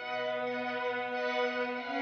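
String chamber orchestra of violins, cellos and double bass playing long held notes.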